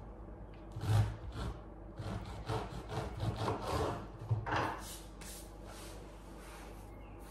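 Scraping and rubbing from handwork at a kitchen counter: several irregular strokes with soft knocks, which stop about five seconds in.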